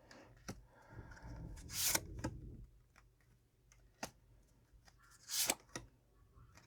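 Tarot cards being handled and laid down: a stretch of rustling, a few light taps, and a short swish a little past five seconds in.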